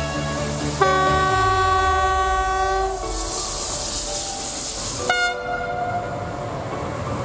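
Electric locomotive sounding a horn blast of about two seconds, then the loaded log wagons of its train rolling past with a steady hiss of wheel noise. A second, shorter horn blast comes about five seconds in.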